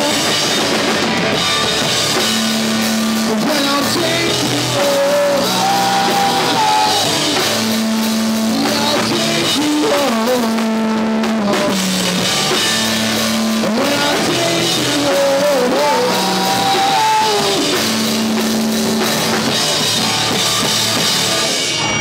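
Live rock band playing: drum kit, distorted electric guitars and bass, with a voice singing the melody over a repeating bass line.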